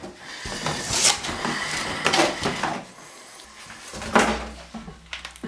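Bumping and scraping as a new porcelain toilet is handled out of its cardboard box and moved into place, with one heavy knock about four seconds in.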